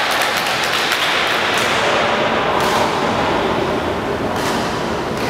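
Badminton rally: sharp racket hits on the shuttlecock and players' shoes on a wooden court, over the steady noise of a gymnasium hall.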